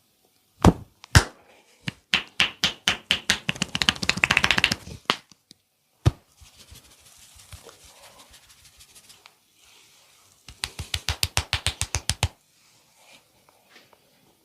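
Hands striking in rapid massage percussion. Two single slaps come first, then a run of quick chopping strikes that speeds up, then one more slap. Near the end comes another fast burst of about eight strikes a second.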